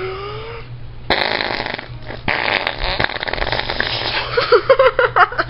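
A person making a long imitation fart noise: a noisy, spluttering blast that starts about a second in and breaks into short pitched sputters near the end.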